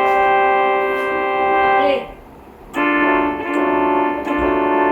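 Multi-chime train horn sounding a long blast of a steady chord that cuts off about two seconds in, then a second long blast on a lower chord that starts just under a second later, with two brief dips.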